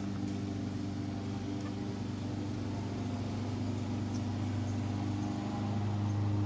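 A steady low mechanical hum from a running motor, growing a little louder near the end.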